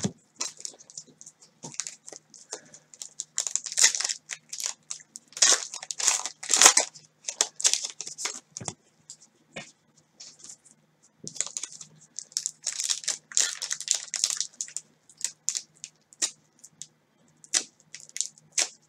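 Thin clear plastic crinkling and rustling in short, irregular bursts as trading cards are handled and slipped into plastic sleeves and holders, with a brief pause of about a second and a half midway.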